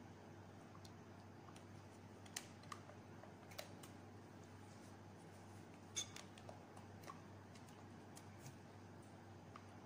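Faint, irregular clicks and taps of a plastic spatula against a glass mixing bowl while a thick creamy mixture is stirred, the sharpest click about six seconds in, over a low steady hum.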